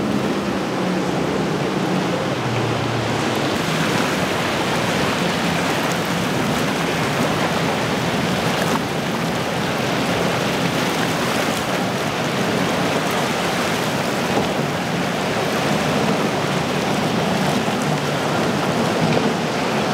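Steady rush of water and spray from a speeding powerboat's hull and wake in choppy inlet water, with a low outboard engine hum underneath that is clearest in the first few seconds.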